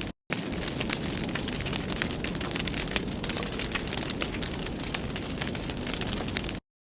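Wood fire in a fireplace crackling, with many sharp pops over a steady rushing hiss. The sound cuts out completely for a moment twice, just after the start and just before the end.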